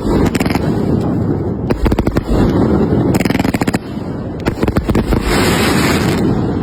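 Firecrackers going off in several rapid strings of sharp cracks, with two stretches of fizzing hiss between them, over a steady low rumble.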